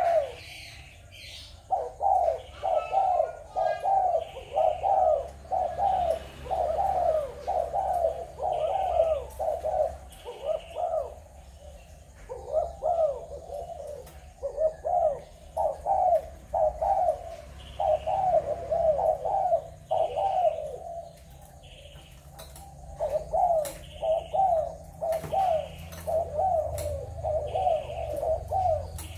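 Spotted doves cooing over and over in short repeated phrases, in several long bouts with brief pauses between them. A burst of wing flapping comes about halfway through.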